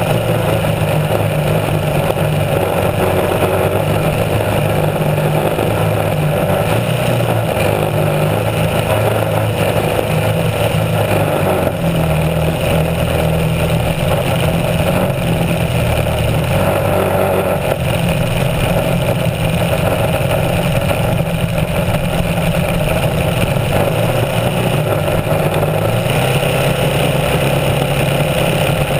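Small racing hydroplane's engine running steadily at speed, with water rushing and spraying off the hull.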